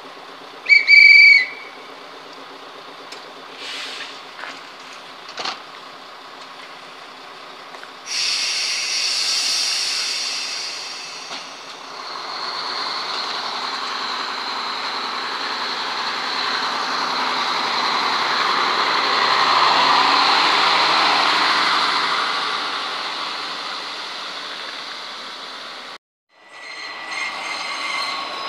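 Czech Railways class 810 railbus pulling away: its diesel engine revs up at about a quarter of the way in, and the engine and running noise swell as it passes close, then fade. A short, loud, high-pitched signal sounds about a second in. An abrupt cut near the end leads to another train's running noise.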